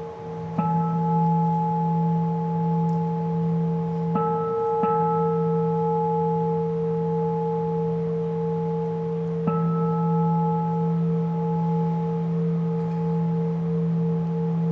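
Large standing bowl bell struck with a wooden striker about four times, two of the strikes close together around four seconds in. Each strike renews a deep, long ring with a slow wavering pulse.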